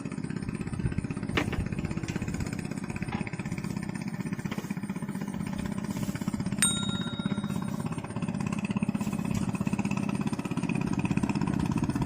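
A small engine running steadily with a fast, even chugging. There is a single sharp click near the start and a brief ringing metallic ping about halfway through.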